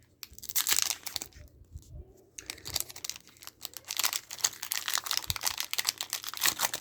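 Foil wrapper of a Pokémon booster pack crinkling and tearing as it is opened by hand, in bursts with a short lull about a second and a half in.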